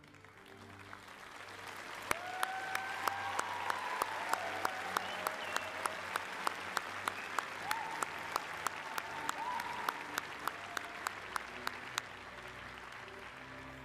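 A large audience applauding, swelling in over the first couple of seconds and tapering off near the end. One nearby pair of hands claps loud and steady at about three claps a second over the crowd.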